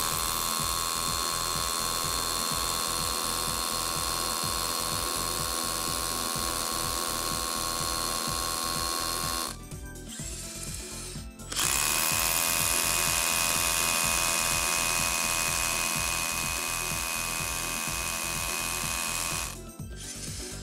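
Makita HR183D 18V cordless SDS-plus hammer drill boring a 10.5 mm hole down into concrete: a steady motor whine over the hammering bit. It runs in two stretches of about nine and eight seconds, with a short stop between them about halfway through.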